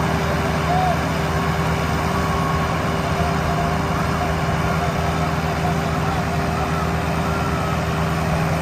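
Diesel engines of a Sonalika 750 DI and a New Holland 3630 tractor running steadily at a constant note, with no revving. Faint voices of onlookers underneath.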